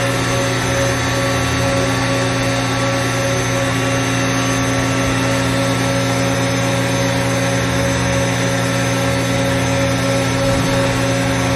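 Mori Seiki GV-503 CNC machining center's spindle running at a steady speed: an even hum with several constant whining tones over a steady hiss.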